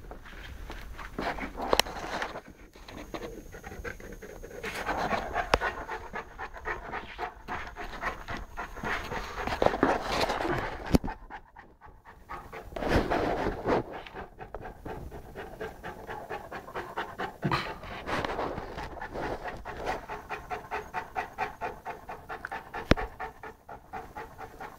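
Saint Bernard puppy panting with quick, rhythmic breaths, with a few sharp knocks among them.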